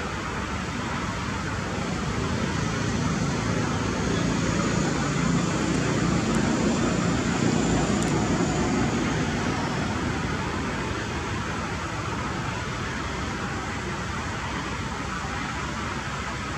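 Distant traffic: a steady engine-and-road rumble that swells over several seconds, as if a vehicle is passing, then fades back.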